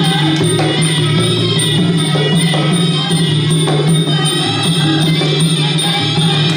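Traditional Khmer ring music for a Kun Khmer bout: drums and small hand cymbals playing continuously with a steady beat.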